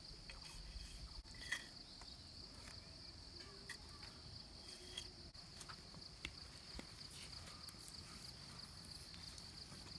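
Faint, steady high-pitched chirring of crickets, with scattered small clicks.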